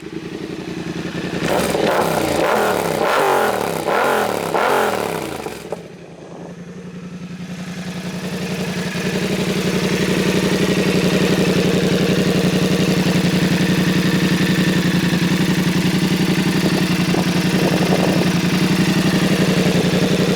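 2022 Yamaha R7's 689 cc parallel-twin engine running through a Spark exhaust with the silencer out, blipped up and down several times over the first six seconds. After a brief dip it settles into a loud, steady held rev, growing louder for a few seconds and then holding.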